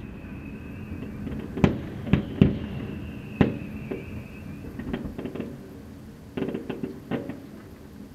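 Fireworks shells bursting: sharp single bangs spaced a second or so apart, then small clusters of quicker cracks, thinning out as the display ends. A faint high whistle runs through the first few seconds.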